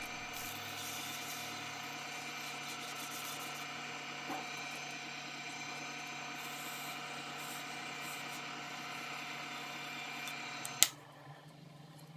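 A small power tool's motor running steadily while the divider points are cleaned up, stopping with a sharp click near the end.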